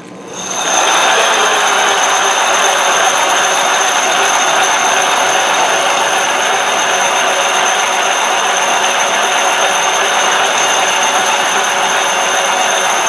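Hardin Triad planetary concrete grinder spinning up in the first second, then running steadily with 100-grit diamond pads grinding a concrete surface: a steady high motor whine over a loud grinding hiss.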